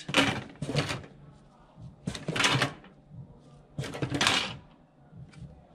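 Scrap computer circuit boards clattering and scraping against one another as gloved hands dig through them in a cardboard box, in about four bursts, with a few small clicks near the end.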